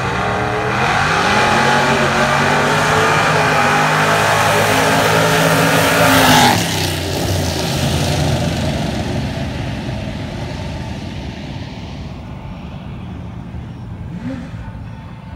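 A drag-racing car accelerating hard down the strip. Its engine note climbs and drops back several times as it shifts gears, is loudest as it passes about six seconds in, then fades away down the track.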